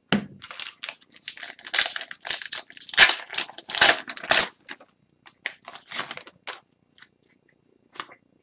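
Foil trading-card pack wrapper crinkling and tearing in a dense run of crackles, then a few light clicks and rustles of cards being handled.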